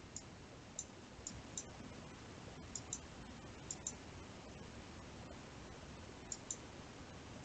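Computer mouse clicking: short, light clicks at irregular intervals, several in quick pairs, over a faint steady hiss.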